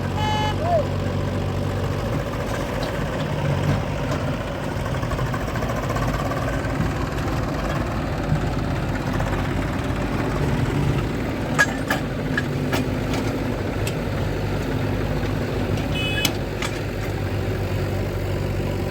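Diesel engines of a JCB 3DX backhoe loader and farm tractors running steadily, with a few short sharp clanks about two-thirds of the way through.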